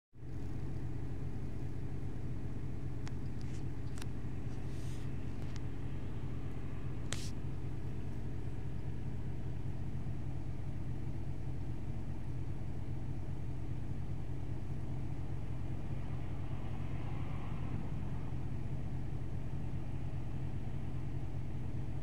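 Audi Q7's engine idling, heard from inside the cabin: a steady low drone with a fast, even ticking in it. The owner asks whether this ticking from the engine is normal.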